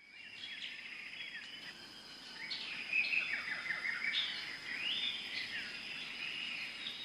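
Several small birds chirping and trilling in overlapping short calls, loudest about three to four seconds in, over a thin steady high tone.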